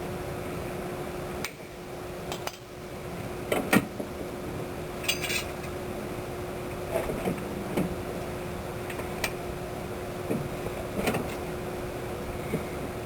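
Scattered metallic clinks and taps of tools and metal parts being handled, one ringing clink about five seconds in, over a steady hum.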